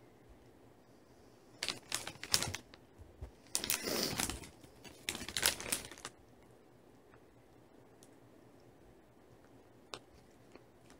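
Crinkly plastic candy packaging being handled in three short bouts of crackling between about one and a half and six seconds in.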